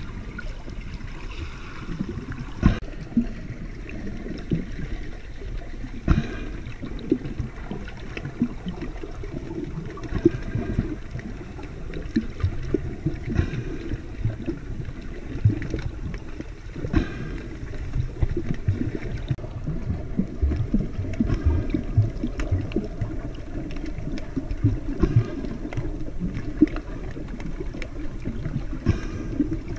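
Water noise picked up by a submerged camera while snorkeling: a muffled, low churning rumble with scattered sharp clicks and knocks.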